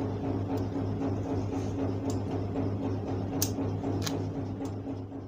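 Steady low electrical hum with a few short, light clicks scattered through it, as basting stitches are snipped and pulled out of a coat.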